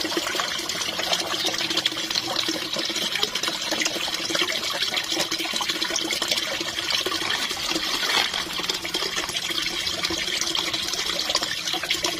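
Water pouring from a spout into a koi pond, steady splashing, mixed with koi thrashing and splashing at the surface as they feed.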